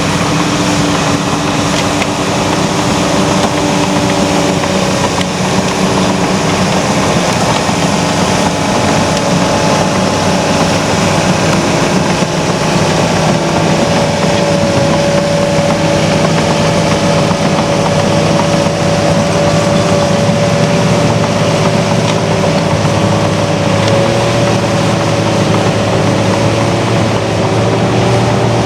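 Heavy diesel earthmoving machinery (excavator and bulldozer) running steadily, the engine note shifting slightly in pitch as the machines work. A clear higher whine comes in strongest from about the middle and fades near the end.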